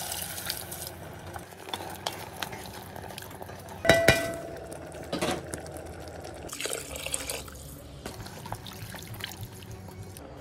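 A wooden spoon stirring wet vegetables and red wine in a Dutch oven, with soft sloshing and scraping. About four seconds in comes a single loud ringing knock against the pot.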